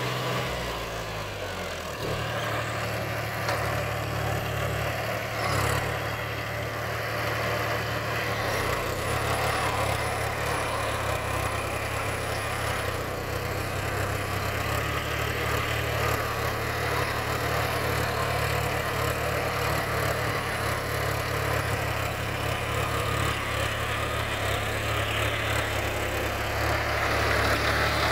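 John Deere 5050D tractor's three-cylinder diesel engine running steadily under load while it pulls a rotary tiller through the soil.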